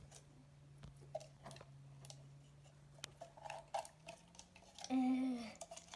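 Scattered small clicks and sticky crackles of a clear slime being worked out of a plastic container. About five seconds in comes a short hum of effort with a slight downward glide, all over a steady low background hum.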